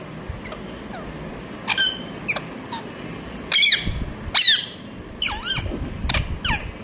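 Parrot giving a run of short, sharp chirping calls that sweep up and down in pitch, about seven in all, the loudest two near the middle.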